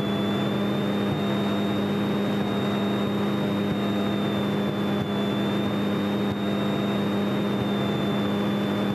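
Grumman single-engine light airplane's piston engine and propeller running steadily during taxi, heard inside the cabin as an even drone with a thin steady high whine over it.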